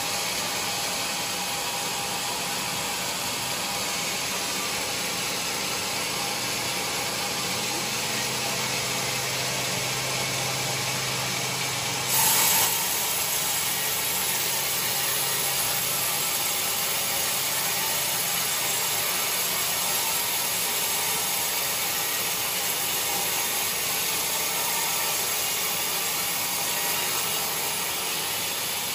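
Band sawmill running, its blade cutting lengthwise through a teak log with a steady rushing noise. About twelve seconds in there is a brief louder burst lasting about half a second.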